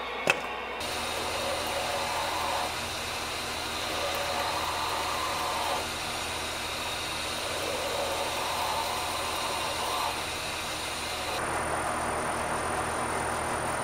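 2x72 belt grinder running while the knife's G10 handle scales are ground on the belt; the grinding swells and eases over about four passes as the piece is pressed on and lifted off. A sharp click sounds near the start.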